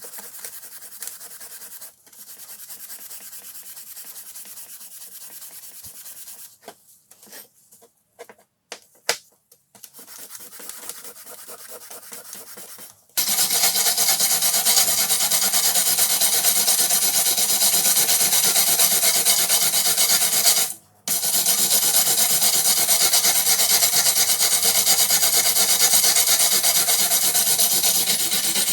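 Abrasive work on the rusted steel of an old screwdriver: rubbing and scraping strokes, then, about halfway through, a much louder steady abrasive noise that stops briefly once before carrying on.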